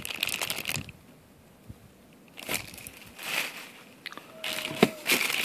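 Clear plastic zip bags crinkling and rustling as they are handled, in several short bursts with a quiet pause of about a second and a half in the middle.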